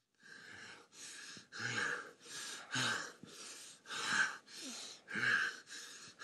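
A person breathing hard in a steady rhythm, about ten quick breaths, every other one louder.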